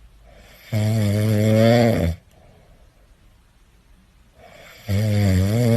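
A sleeping cat snoring: two long, loud snores about four seconds apart, each led in by a softer breath.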